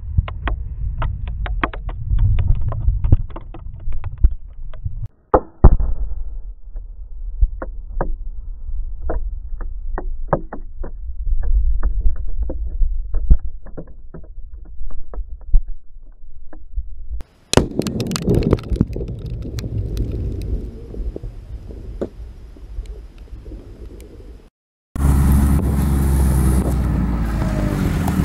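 Aftermath of a Tannerite blast: a low rumble with many sharp crackles and pops as the fireball burns out, with a second loud bang about five and a half seconds in. Near the end, after a short gap, a loud steady rumble.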